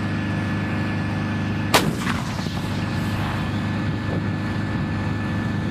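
An M109 Paladin 155 mm self-propelled howitzer fires a single round about two seconds in: one sharp, heavy blast followed by a rolling echo. A steady engine hum runs underneath.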